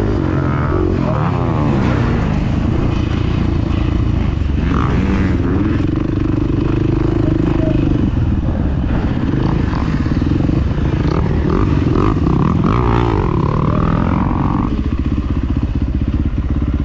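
Motocross bike's engine heard close up from the handlebars, running and revving up and down with the throttle.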